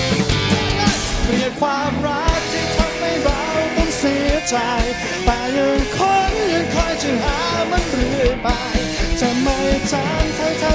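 Live rock band playing: electric guitars and drums with a lead vocal singing over them.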